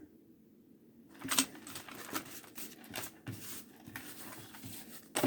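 Faint, irregular rustles and light taps from small things being handled, starting about a second in after a short dead silence.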